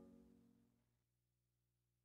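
Near silence, with only the faint tail of faded-out background music.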